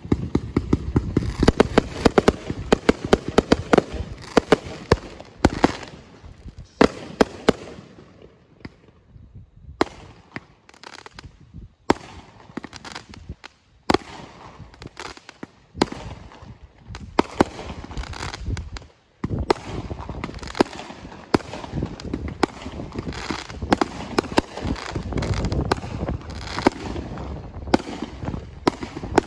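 Aerial fireworks firing in rapid volleys and bursting overhead: a dense barrage of sharp bangs that thins out about a third of the way in, then builds again to the end.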